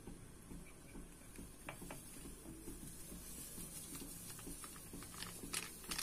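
Faint crinkling of a plastic Eno fruit-salt sachet as it is handled and shaken out into batter, with a few light ticks, more of them near the end.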